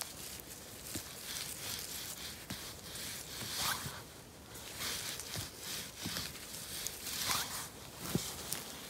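Clothing and handling rustle close to the microphone: several scratchy swishes, two of them rising briefly in pitch, with small knocks as the picker moves and reaches over the mossy ground.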